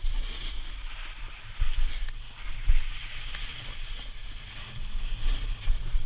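A snowboard sliding and scraping over groomed, hard-packed snow, mixed with wind buffeting the helmet camera's microphone. It is a steady rush with low rumbling, and it swells briefly twice in the first few seconds.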